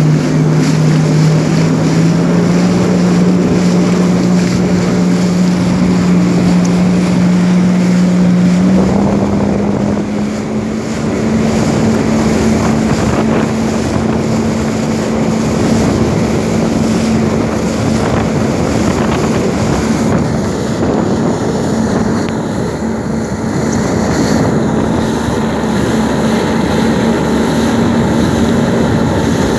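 Jet ski engine running at speed while towing a loaded banana boat, its pitch stepping up about a second in and again about nine seconds in, then holding steady. Wind buffets the microphone over the rush of water.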